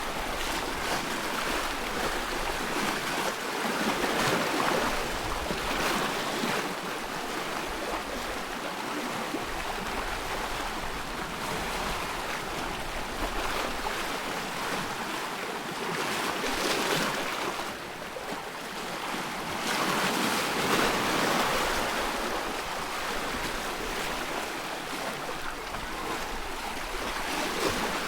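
Choppy loch water lapping and splashing, swelling and easing every few seconds.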